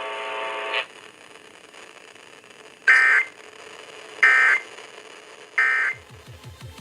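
Three short bursts of Emergency Alert System SAME data tones, evenly spaced about a second and a half apart: the warbling digital end-of-message code that closes an EAS alert. A brief steady buzz sounds in the first second before them.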